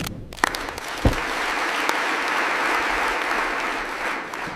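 A crowd applauding, a steady patter of many hands clapping that fades near the end.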